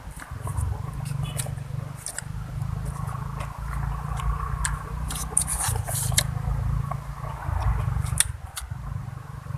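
A person eating close to the microphone: chewing, with irregular crisp crunches and wet mouth clicks, over a steady low rumble.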